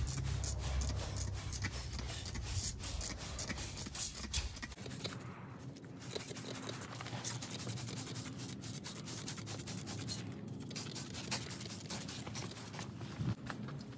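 Pressure-washer water jet hissing and spattering against the steel housing and frame of a Honda EW171 welder generator. A low hum sits underneath for the first few seconds, then cuts off abruptly.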